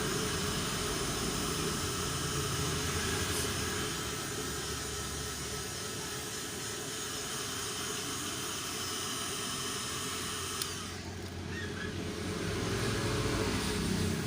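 Electric heat gun blowing hot air with a steady hiss and whir, softening the old sealant glue on a car headlamp housing. A click comes about two-thirds of the way through, after which the high hiss drops away and only a lower rumble is left.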